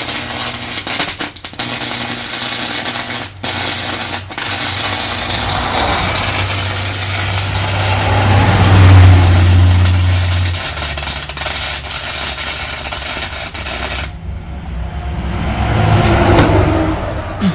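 Electric arc welding on old gear steel: a continuous crackle and sizzle over a steady low hum. The arc cuts off about fourteen seconds in. The metal is oily, which the welder blames for a dirty weld.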